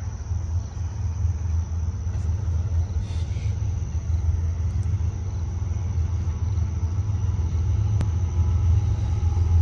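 Low, steady rumble of the diesel locomotives leading an approaching CN manifest freight train, growing gradually louder as it nears.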